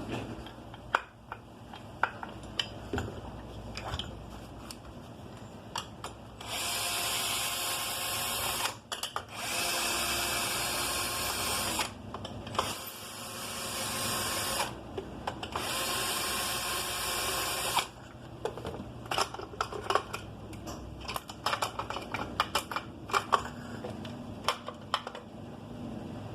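Four bursts, each two to three seconds long, of a loud, noisy shop tool worked on the brush cutter, with light clicks and knocks of parts being handled before and after.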